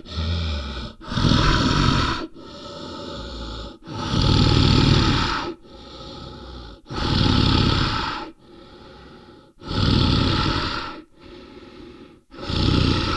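A bear breathing heavily in a slow, even rhythm: loud, drawn-out exhales alternating with quieter inhales, about one breath every three seconds.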